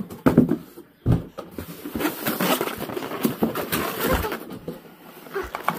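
Polystyrene foam packing blocks around a new sewing machine being pulled out of a cardboard box: two knocks in the first second or so, then a couple of seconds of foam rubbing and scraping against cardboard and plastic wrap.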